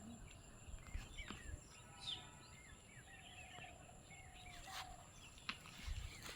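Faint outdoor ambience with small birds chirping and calling throughout, including one longer drawn-out call around the middle.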